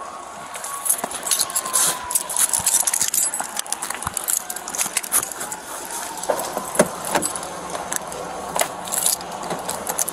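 Keys and gear on a police officer's duty belt jingling and rattling in irregular clinks as he walks, heard close on a body-worn camera.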